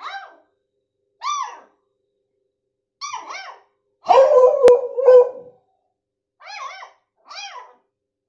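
A month-old beagle puppy yapping in short, high-pitched yips, roughly one a second. About four seconds in, a louder, deeper bark from the adult beagle breaks in.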